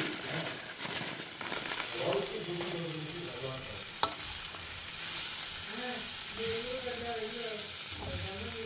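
Chopped long beans frying in a stainless steel pan, sizzling steadily while a metal spoon stirs and scrapes through them. One sharp clink of the spoon against the pan comes about four seconds in.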